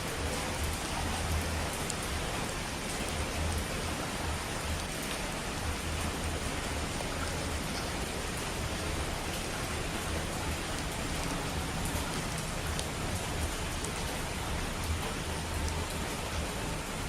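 Steady, even hiss of falling water, as from heavy rain or a waterfall, with a low rumble that swells and fades underneath.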